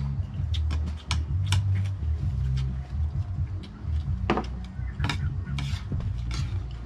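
Spoons clinking against bowls and plates during a meal: a scatter of short sharp clicks over a low rumble.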